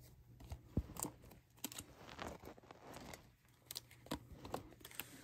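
Faint, scattered clicks and rustles of trading cards being handled and shuffled.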